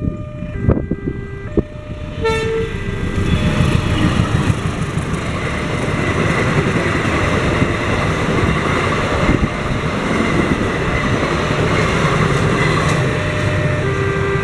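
Passenger train passing over a level crossing: a short horn toot about two seconds in, then the noise of the train running over the rails, which builds and holds steady for about ten seconds. The crossing's electronic warning chime, stepping between pitches, sounds at the start and comes back near the end.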